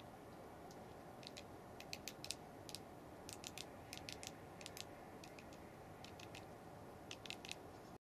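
Great tit pecking at a hanging seed cake: irregular clusters of quick, faint taps over a steady low hiss.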